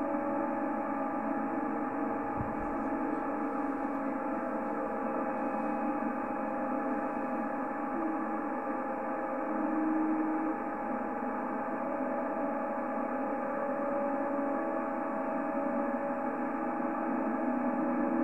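CB radio receiver audio: a steady, thin, telephone-like hiss with several steady whistling tones held under it and no speech.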